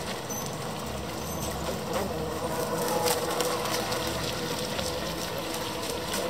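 Club 500 radio-controlled racing boats running on the water, their small electric motors giving a steady whine.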